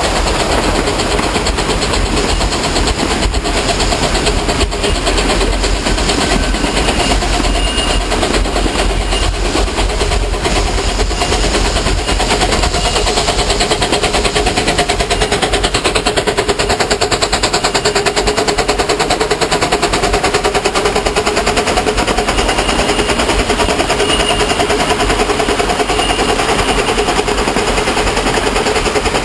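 Train running at speed on the track: a loud, steady, fast clatter of rapid knocks with a faint hum underneath.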